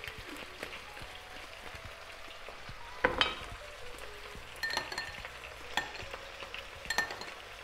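A metal spoon stirs a thin sauce in a small glass bowl, clinking against the glass a few times in the second half. Underneath is a steady sizzle of chicken and vegetables frying in a pan.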